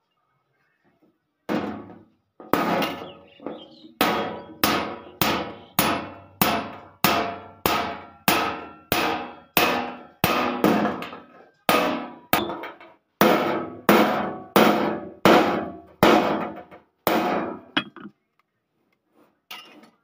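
Hammer striking a chisel to cut a steel sheet resting on a steel block: sharp metallic strikes, each ringing briefly, about two a second. There is a short break about halfway through, and the striking stops about two seconds before the end.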